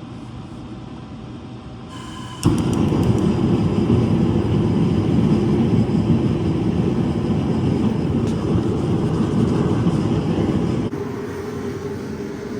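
Propane heater being lit: a few sharp clicks about two seconds in, then it catches with a sudden, loud, steady rushing burn that runs on and drops to a quieter steady level near the end.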